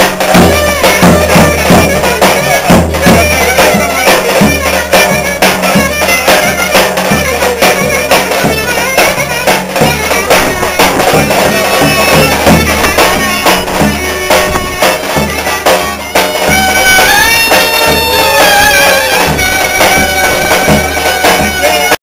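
Live Turkish folk dance music: a davul bass drum beaten in a steady rhythm under a reedy wind instrument and a violin playing the melody. From about two-thirds of the way through, the wind instrument holds long sustained notes, and the music cuts off abruptly at the end.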